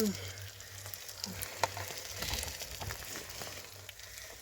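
Steady sizzling crackle with scattered small clicks.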